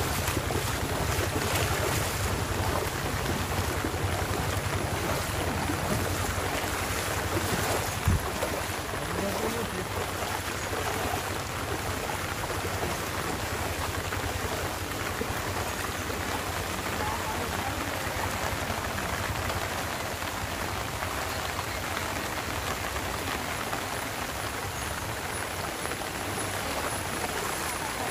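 Heavy monsoon rain falling steadily on a flooded road, an even, constant hiss. A low rumble of wind on the phone microphone runs through the first several seconds and ends with a single knock about eight seconds in.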